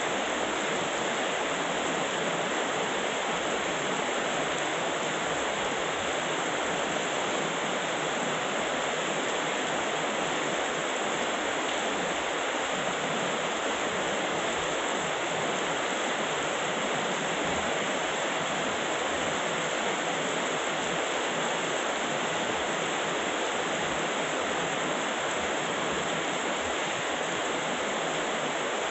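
Heavy rain pouring steadily, a dense, even hiss with no thunder.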